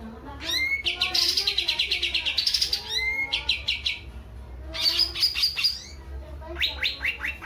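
A green leafbird (cucak ijo) singing as it learns its song: bursts of rapid, repeated high chirps and trills in three phrases, the longest about half a second in, another near five seconds and a shorter one near the end, over a low steady hum.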